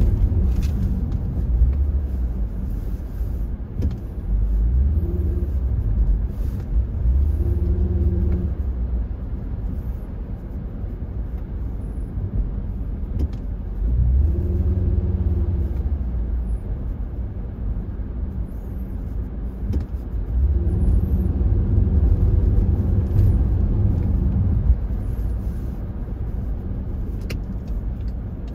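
Low rumble of a car driving, heard from inside the cabin: engine and road noise that swells and eases several times as the car moves through city traffic.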